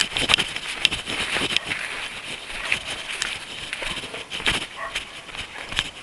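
A runner's footsteps striking a path: repeated short thuds, heard against steady outdoor background noise.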